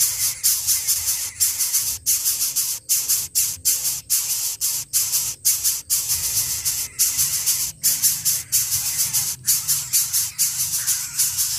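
Greater coucal nestlings begging with a harsh, rattling hiss that comes in quick bursts broken by brief irregular pauses.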